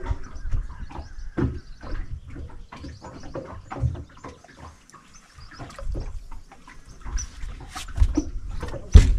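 Scattered knocks and taps in a small boat as fishing gear is handled, with one loud thump about nine seconds in.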